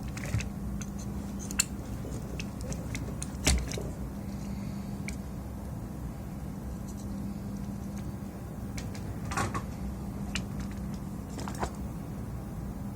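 Scattered small clicks and taps of tools and parts being handled on an electronics repair bench, the sharpest about three and a half seconds in, over a steady low hum.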